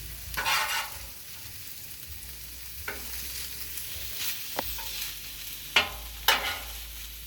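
Rice frying in oil on a Blackstone flat-top griddle, sizzling steadily while it is stirred and turned, with several scrapes and knocks on the steel surface, the two sharpest close together near the end.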